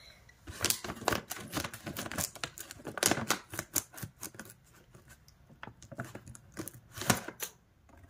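Irregular run of sharp clicks and taps with some crinkling, like something being handled and cut by hand.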